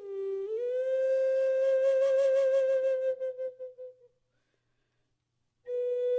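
Solo music on a single melody line: a note slides down and back up, then is held and fades out about four seconds in. After a short silence a new phrase begins near the end.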